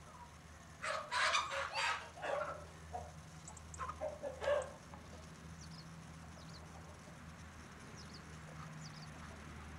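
Domestic hens clucking and squawking in loud bursts, about a second in and again around four seconds, then quieter. A steady low hum lies under it.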